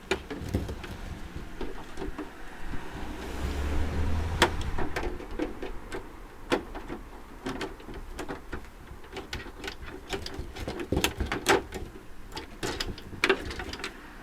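Irregular knocks, clicks and rattles of metal parts being handled and pulled out of a dismantled air conditioning unit, with a brief low rumble a few seconds in.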